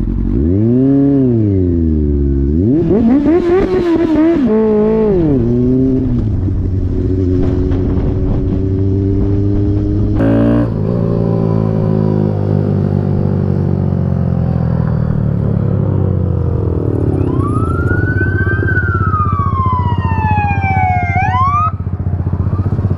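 A motorcycle engine revs up and down several times, then runs steadily while riding. Near the end a police siren sweeps up and down in pitch, then gives several quick falling whoops.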